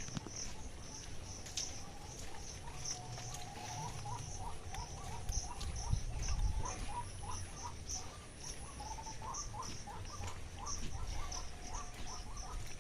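Outdoor animal calls: a high chirp repeating about twice a second, with quick runs of lower chirping calls joining it after a few seconds, over a low rumble.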